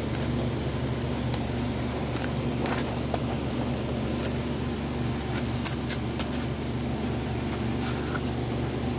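A steady low hum made of several even tones, like a fan or other running machine, with a few faint clicks and light taps from handling a loudspeaker's cone and frame.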